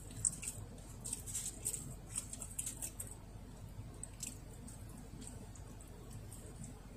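Thin clear plastic takeaway container crinkling and clicking as it is handled while chopsticks pick up a piece of fried chicken: a quick run of small sharp clicks, thinning out after about three seconds.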